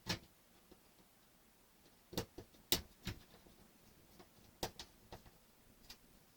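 Small model-kit parts and tools being handled and set down on a work surface: scattered sharp clicks and taps at irregular intervals, clustered around the middle.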